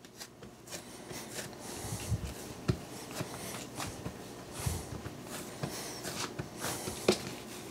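Hands pressing and flattening pizza dough on a silicone pastry mat: faint, soft rubbing and patting with a few light taps.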